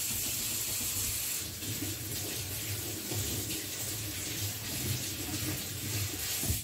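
Kitchen tap running steadily into a sink while hands are rinsed under it; the water cuts off suddenly at the end.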